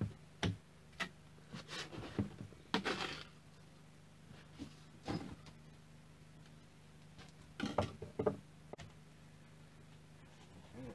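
Scattered scrapes and taps of a trowel working mortar and setting bricks: a few short sounds with gaps between them, one longer scrape about three seconds in, over a faint steady hum.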